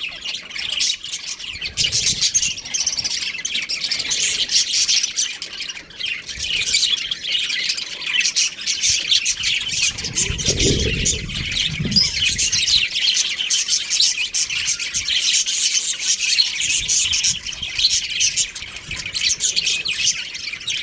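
Budgerigars chirping and chattering nonstop, a dense stream of fast, high chirps.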